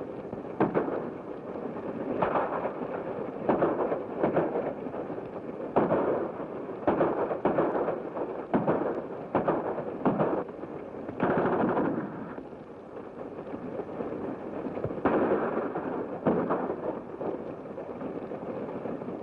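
Gunfire in a shoot-out: a string of loud shots at irregular intervals, with a longer continuous burst about eleven seconds in, over the hiss of an early sound-film track.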